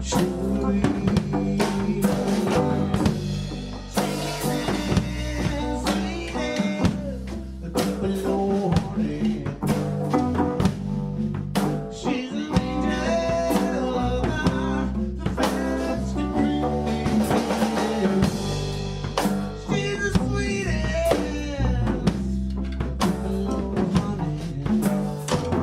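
Background music with a drum kit keeping a steady beat, guitar, and singing.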